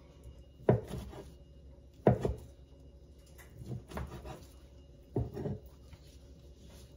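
Chef's knife slicing through cooked chicken thigh and knocking on the cutting board, four sharp knocks about a second to a second and a half apart.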